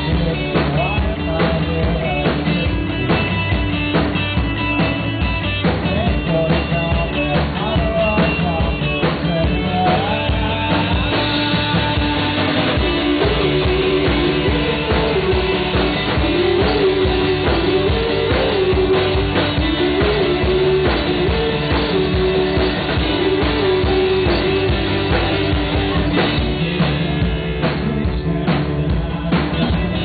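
Live rock band playing through a PA: drum kit, electric bass, and acoustic and electric guitars. A wavering melody line stands out over the mix from about the middle of the stretch until a few seconds before the end.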